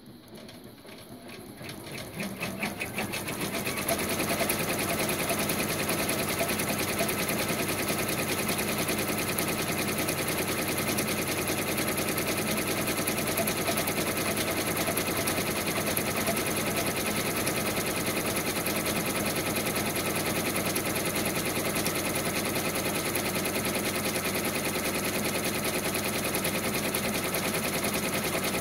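Brother PR1050X ten-needle embroidery machine stitching. It starts with separate needle strokes, speeds up and grows louder over the first few seconds, then runs at a steady fast stitching rate.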